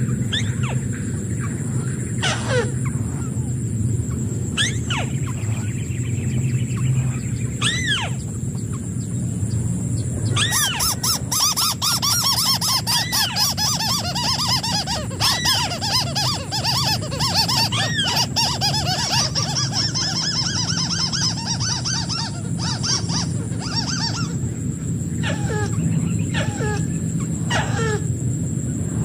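White-browed crake calls: sharp, arching, downward-sweeping notes, scattered at first, then a dense chattering run of many calls from about a third of the way in to past halfway, then scattered again. A steady high-pitched whine runs underneath.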